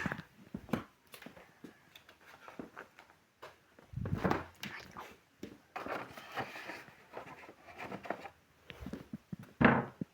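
Small objects such as cosmetics and their containers being handled and set down while a dressing table is tidied: scattered clicks, taps and rustling, with a louder knock near the end.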